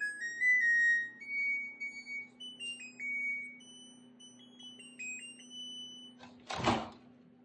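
LG Direct Drive front-loading washer-dryer playing its end-of-cycle tune, a string of electronic beep notes stepping up and down in pitch, signalling that the wash has finished. About six and a half seconds in, the door is pulled open with a short thud.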